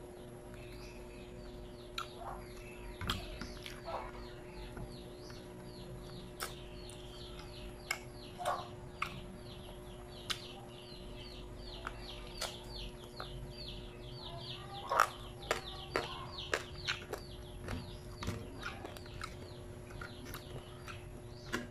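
Birds chirping in the background, a fast run of short high notes, mixed with close eating sounds: chewing, lip smacks and sharp little clicks and taps, a burst of the loudest ones about two-thirds of the way in. A faint steady hum sits under it all.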